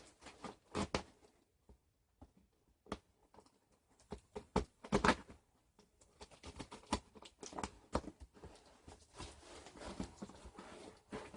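Cardboard shipping box being opened by hand through the top: irregular crackles, tearing and knocks that grow busier about halfway through.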